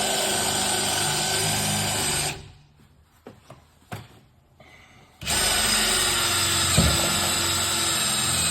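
A power drill boring a larger hole through the van's sheet-metal door, a pilot hole for a jigsaw blade. It makes a steady whine in two runs: the first stops about two seconds in, and the second starts again about five seconds in.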